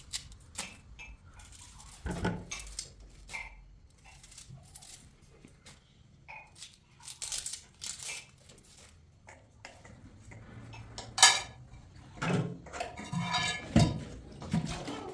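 Dishes and cutlery clinking and knocking in scattered short taps, with a sharp louder clack about eleven seconds in and a busier run of clatter near the end.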